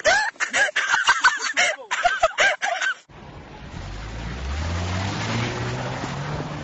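A person's voice in rapid, excited bursts, cut off abruptly about three seconds in. A Mercedes-Benz SUV's engine then revs up under load, its pitch rising steadily.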